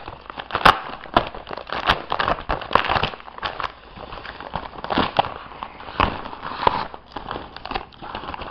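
Purple tissue paper wrapping crinkling and crackling in irregular bursts as it is pulled open by hand to unwrap a package.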